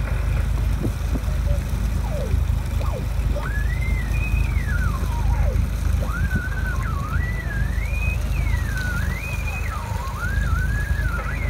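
Steady low rumble of a fishing boat's engine and the sea at night. From about three seconds in, someone whistles a wandering tune, one thin line sliding up and down.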